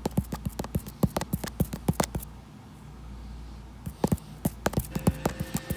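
A fast, irregular run of sharp clicks or taps, several a second, that stops about two seconds in and starts again about four seconds in.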